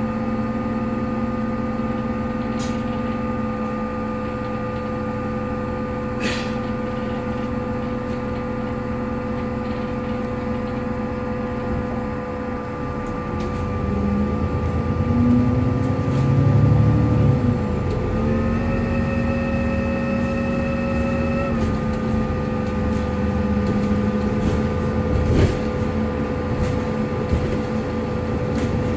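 Alexander Dennis Enviro 400MMC double-decker bus heard on board, with a loud, steady whirring whine over the engine. About two-thirds of the way in the whine steps briefly up in pitch, and shortly before that the engine note swells and glides up and down; a few sharp knocks sound along the way.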